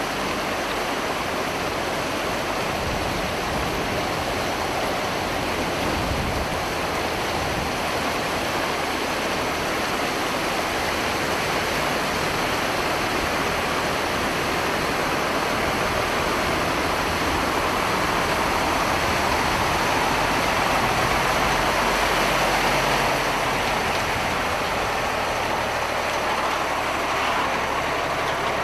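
Floodwater rushing steadily across a street. In the second half a heavy army truck's engine comes in underneath, getting louder as the truck drives through the water close by.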